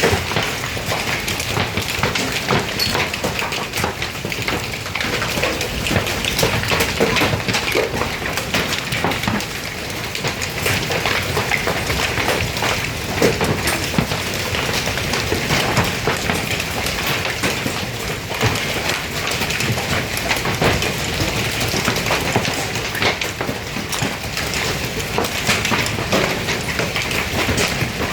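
Hailstones falling in a steady, dense clatter of many small hits on hard surfaces.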